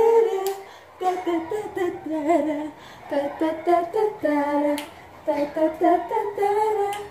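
A woman humming and singing a tune unaccompanied, in short phrases with brief breaks between them.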